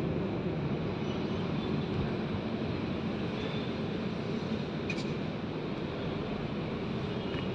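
Steady low rumble of running vehicle machinery, with one faint click about five seconds in.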